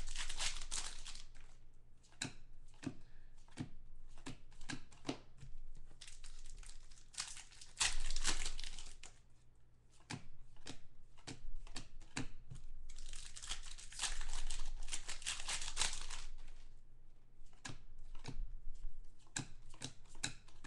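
Foil trading-card packs being torn open, the wrappers crinkling in several longer stretches, with short clicks and snaps of cards being handled and flipped through in between.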